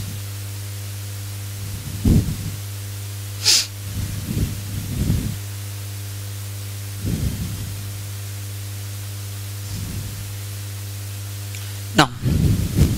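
Steady electrical mains hum with evenly spaced overtones, under a few soft low swells, a short sharp hiss about three and a half seconds in and a click near the end.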